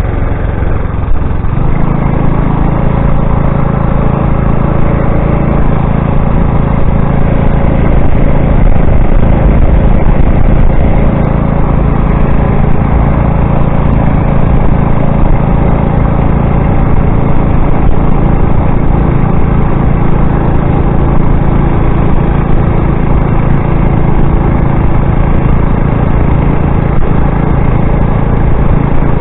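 Motorized bicycle's CVT-driven engine running at a steady cruising speed with a steady hum, firming up about a second and a half in, under a constant rush of wind and road noise.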